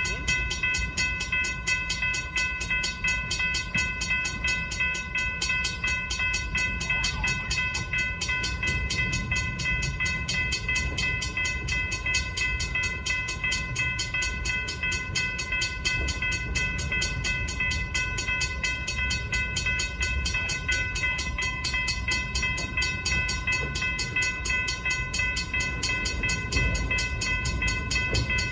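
Grade-crossing warning bell ringing steadily in rapid, even strikes, over the low rumble of a slow freight train's boxcars rolling toward the crossing. The rumble grows a little near the end as the cars close in.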